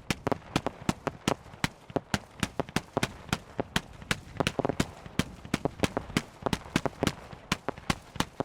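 Fireworks going off in quick, irregular succession, several sharp bangs a second.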